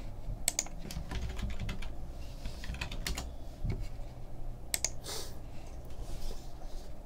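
Typing on a computer keyboard: short runs of key clicks with gaps between them, as someone looks something up. A brief soft swish about five seconds in.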